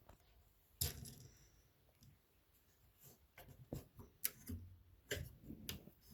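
Plastic Lego pieces of a pirate ship set clicking and knocking as its sections are moved by hand. There is a sharp knock about a second in, then a run of small clicks and taps in the second half.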